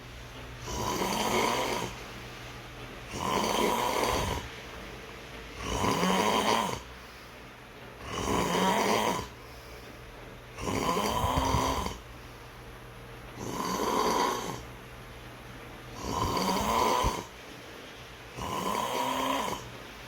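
A sleeper snoring in a steady rhythm: eight snores, each about a second long, roughly two and a half seconds apart.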